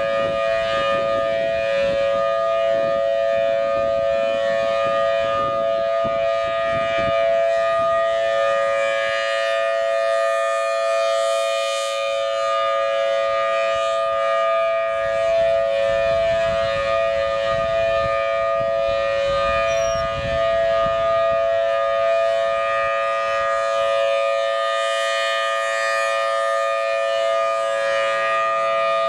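Federal Signal Thunderbolt 1000T tornado siren with a 5/6-port chopper sounding its steady wail at full speed: a two-tone chord that holds a constant pitch. The chord grows brighter twice, about fourteen seconds apart, as the rotating siren head sweeps past.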